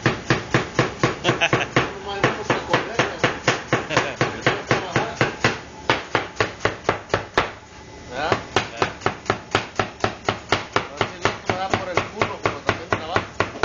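Kitchen knife chopping quickly on a cutting board: a fast, even run of sharp knocks, about five a second, with a short break about eight seconds in.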